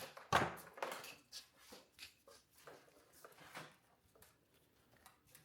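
Rustling and clicking of a car wiring harness being handled, as wires and plastic connectors are pulled out through the loom, in a string of short irregular bursts with the loudest about half a second in.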